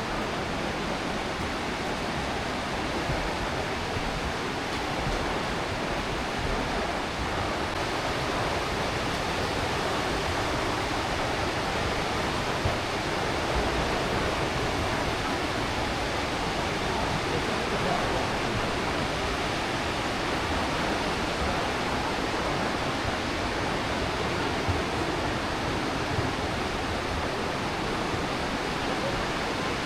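Steady rush of the Aare River's fast water flowing through the gorge, an even, unbroken roar.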